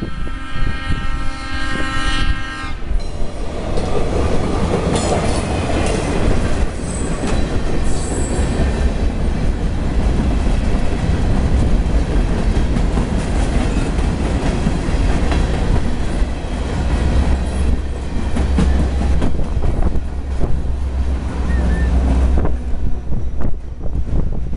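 A train horn sounds for the first three seconds or so. Then a CSX freight train of boxcars rolls through the crossing with a loud, steady rumble and wheels clattering over the rails. The noise drops away near the end as the last car clears.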